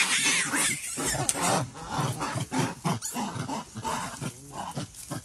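Macaques calling: a rapid string of short squeals and grunting calls, with a shrill screech at the start.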